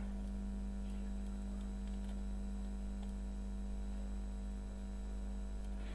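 Steady electrical hum with a low buzz and a stack of faint steady tones, the background hum of the recording setup, with no other sound standing out.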